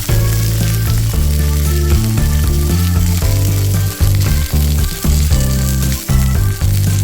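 Food sizzling as it fries, a steady hiss, with background music of changing notes over it.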